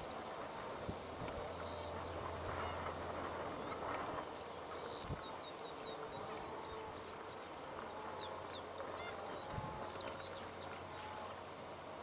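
Banded stilts calling: many short, high, clipped notes from the flock, with a quick run of them about four seconds in. A low steady hum sits under the first half.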